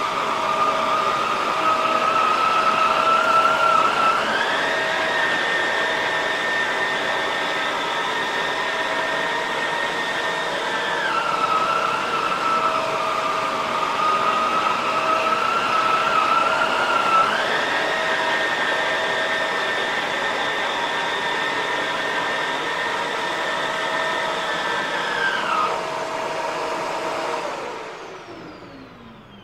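Shark Rotator upright vacuum running on shag carpet with a steady motor whine, its pitch stepping up twice for several seconds and dropping back. Near the end it is switched off and the whine falls away as the motor spins down.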